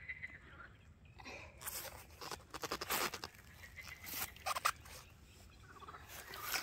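Irregular rustling and crackling from handling a freshly caught carp, densest in a run of short crackles between about two and five seconds in.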